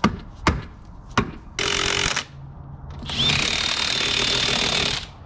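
A few sharp metal clicks, then a cordless impact driver running in two bursts, a short one and then one of about two seconds with a steady high whine, driving a nut on the sterndrive's mount.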